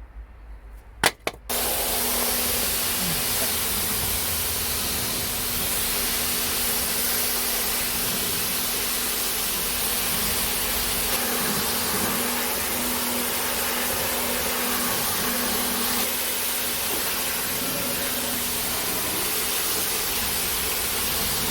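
A sharp click, then a few moments later a loud, steady rushing hiss with a faint constant hum underneath, the sound of a powered machine switched on and left running.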